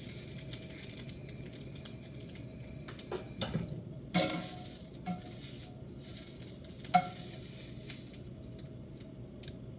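Scrambled eggs sizzling in a frying pan while a utensil scrapes and clinks against the pan, several sharp knocks with the loudest about seven seconds in.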